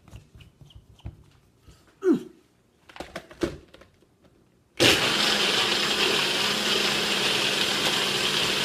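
A countertop blender is switched on about five seconds in and runs steadily at full speed, blending a thick peanut butter and chocolate shake. Before it starts there are a few light clicks and two brief sounds that fall in pitch.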